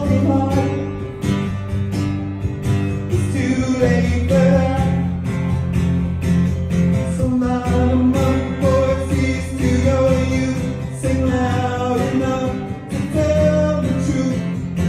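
A man sings live into a microphone while strumming a steel-string acoustic guitar, a solo acoustic song with a steady strummed rhythm under the vocal line.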